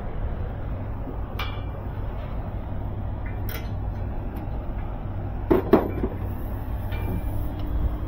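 Scattered knocks and clanks around a steel roof hatch as a rope is hauled up through it, with a loud double clank about five and a half seconds in and a few lighter clicks before and after. A steady low hum runs underneath.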